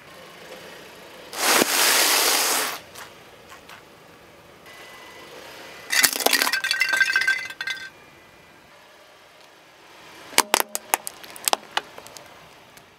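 A car tyre rolls over objects and crushes them one after another. About a second in, a sealed bag of crunchy flakes is flattened with a long dense crunch. Around six seconds in comes a crackling crush with squeaks as rubber ducks are run over, and near the end there is a quick run of sharp plastic cracks.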